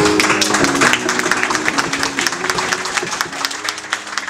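Audience applauding while the held closing notes of a song's accompaniment fade away, the clapping thinning out near the end.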